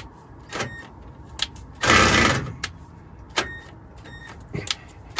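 Hand work on metal parts: a few sharp clicks and knocks, with one brief, loud rasping noise about two seconds in.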